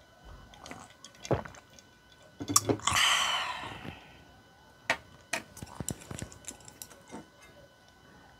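Sipping and swallowing a drink from a glass, with a breathy burst about three seconds in that is the loudest sound, followed by a scatter of light clicks and taps of tableware.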